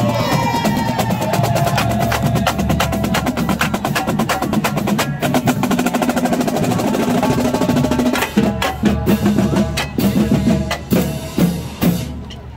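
Marching band drumline playing a cadence as it passes: rapid snare-drum strokes and rolls, turning about eight seconds in to spaced, heavier hits with bass drums.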